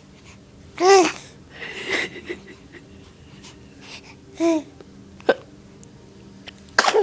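A baby's short, high-pitched squeaky vocalizations and breaths, the loudest about a second in and another near the middle, as he works up to a sneeze, then a sharp sneeze right at the end.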